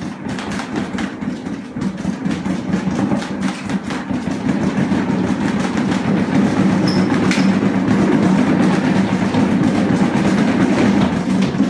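Giant cat exercise wheel rolling and rumbling as kittens run in it, a steady low drone with clatter that grows louder over the first half.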